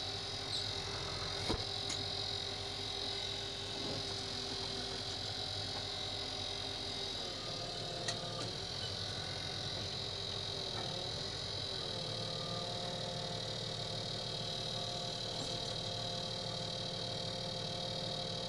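Tractor engine running steadily with a constant high whine; its note steps up about a third of the way in, wavers, then settles higher a little past halfway.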